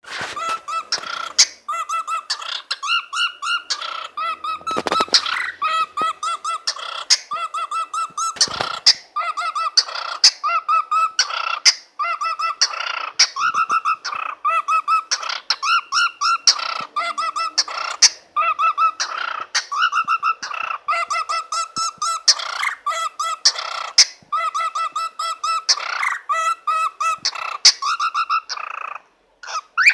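Young cockatiel whistling a fast, wobbling, pulsed warble in short repeated runs, broken by sharp clicks, a dubstep-like imitation.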